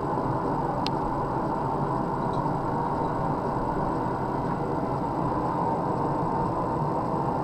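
Steady roar of a running blacksmith's forge, with one light metallic click about a second in.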